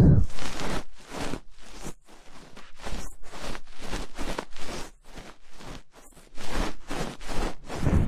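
Close rustling and scraping handling noise on the microphone, in irregular strokes about three a second.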